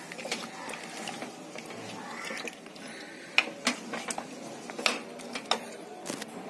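Wooden spoon stirring chicken pieces and potato chunks in thin gravy in a nonstick pan. Scattered clicks and knocks of the spoon against the pan come mostly in the second half.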